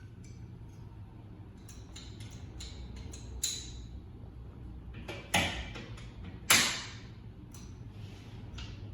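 Light clicks and taps, then three sharp knocks with short ringing tails, about a second or two apart, the last two the loudest, over a steady low hum.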